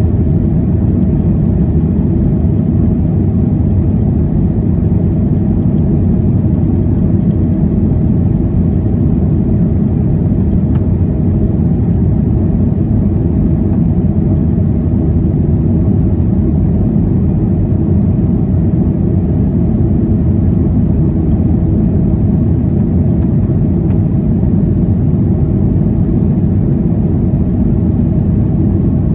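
Steady, loud low rumble of a Boeing 737-800's CFM56-7B turbofan engines and rushing air, heard inside the passenger cabin.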